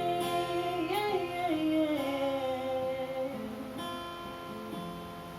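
Pop ballad with acoustic guitar: a singer holds out a long note that bends in pitch about a second in, then the sound thins to quieter sustained guitar chords that fade toward the end.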